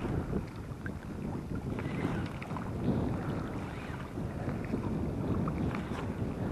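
Strong gusty wind blowing on the microphone: a low rumble that swells and eases.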